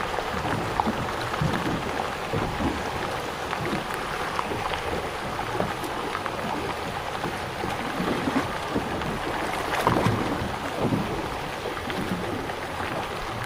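Wind and choppy sea water splashing, with a scatter of small splashes from bluefish feeding at the surface, like rain on the water; a slightly louder splash comes about ten seconds in.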